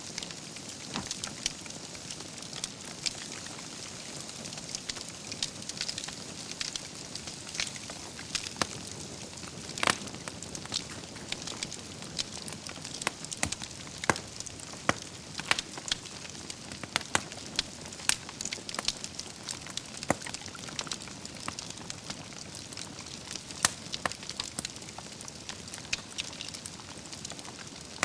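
Wood fire crackling in a fireplace: a steady soft hiss of burning logs with frequent sharp, irregular pops and snaps.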